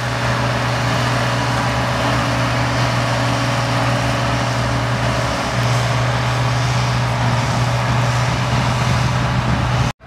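MB-Trac 1500's six-cylinder turbo diesel running steadily under load while the tractor pulls a PTO-driven power harrow and seed drill, with the constant clatter of the working implements. It cuts off abruptly near the end.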